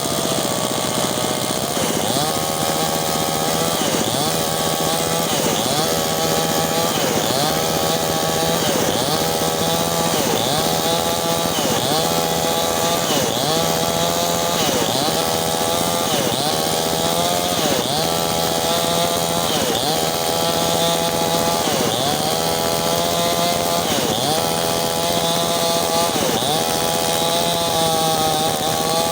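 Mini chainsaw running steadily while cutting wood, its pitch dipping and recovering about once a second as the chain bites into the wood.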